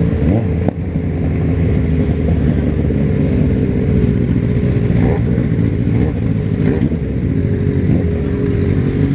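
Motorcycle engine running steadily at low speed, heard from on the bike, as it filters slowly through traffic.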